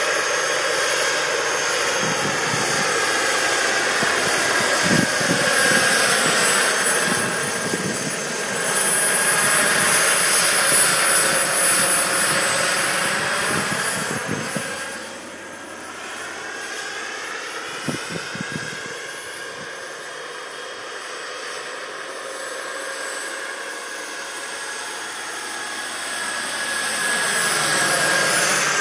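Radio-controlled scale Lama helicopter in flight: a rushing rotor sound with a high steady whine, swelling and fading as it moves about, softer around the middle and loudest near the end.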